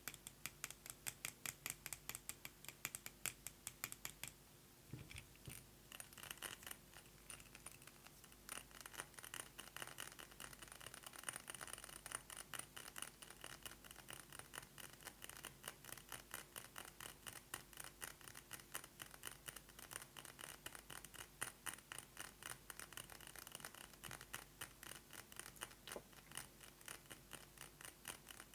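Rapid fingernail tapping on a glass perfume bottle, many sharp taps a second. There is a brief pause about four to five seconds in, then the tapping resumes, denser and mixed with light scratching.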